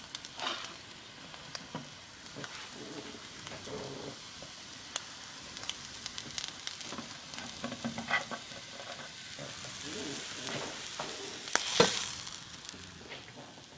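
An egg sizzling in hot oil in a mini cast iron skillet, with scattered scrapes and clicks of a spatula. A sharp knock near the end is the loudest sound.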